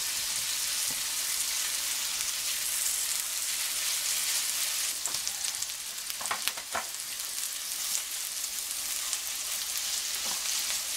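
Thin ground-beef patties sizzling in melted butter in a skillet, a steady hiss of frying. A few sharp taps and scrapes of a spatula on the pan a little past the middle and near the end, as the meatballs are smashed flat.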